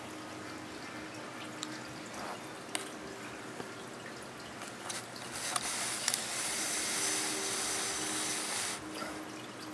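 Steady trickle and drip of an aquarium filter with a faint hum and a few light clicks. About halfway, loud cloth rustling lasts about three and a half seconds, then stops.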